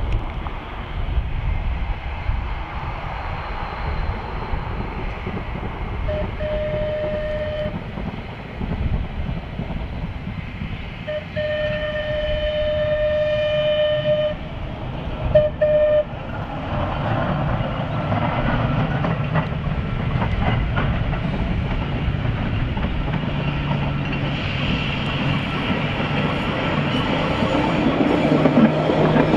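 Manx Electric Railway 1894 vestibuled saloon tram sounding its horn on the approach to a level crossing: a short blast about six seconds in, a longer one about eleven seconds in and a brief one near sixteen seconds. Then comes a rising rumble and clatter of the tram's wheels on the rails, loudest near the end as it passes close by.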